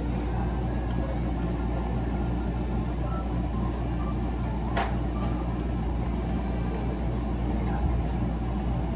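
Steady low background rumble and hum, with one sharp click about five seconds in.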